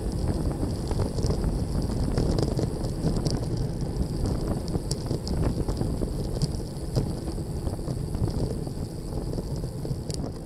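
Wind buffeting the microphone of a bicycle-mounted camera, over the rumble of road-bike tyres on a lane, during a downhill descent. A few sharp clicks and rattles from road bumps come through, and the rush eases off a little in the second half.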